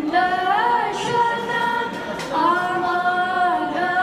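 Two young girls singing unaccompanied into microphones, holding long notes with slides in pitch; one phrase ends a little over two seconds in and the next begins at once.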